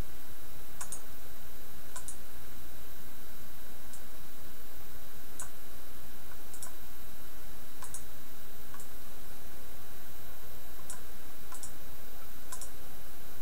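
Computer mouse clicking: about a dozen single clicks, roughly a second apart, over a steady low hum.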